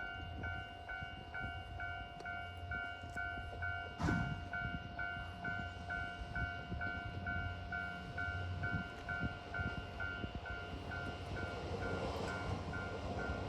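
Japanese level-crossing warning bell ringing in an even rhythm of about two strikes a second, with a single sharp knock about four seconds in. Toward the end a low rumble grows as the train approaches the crossing.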